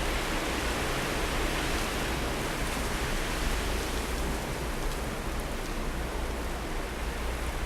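Blizzard wind blowing steadily: an even rushing hiss, with a low rumble of wind on the microphone underneath.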